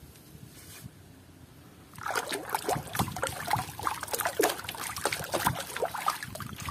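A hand swishing a toy elephant through a tub of muddy water, splashing and sloshing. It starts about two seconds in, after a quiet stretch.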